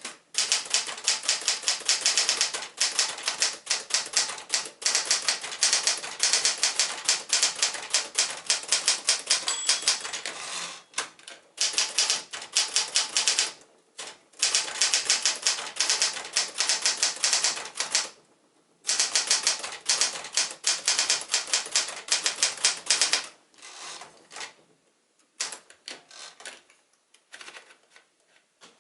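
1964 Smith-Corona Galaxie manual portable typewriter being typed on: a fast run of key strikes with a few brief pauses. About three-quarters of the way through, the strikes turn quieter and sparser.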